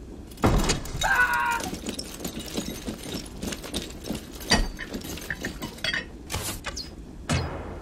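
Layered film sound effects: a string of heavy hits and crashes with many metallic clinks and rattles between them, and a brief ringing tone about a second in. The three loudest hits fall near the start, about midway and near the end.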